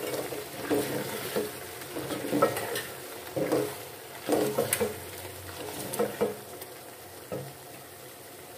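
A spoon stirring sliced potatoes in a thick spiced masala in a metal pot, scraping and knocking against the pot at irregular intervals, over a steady frying sizzle. The knocks stop a little before the end.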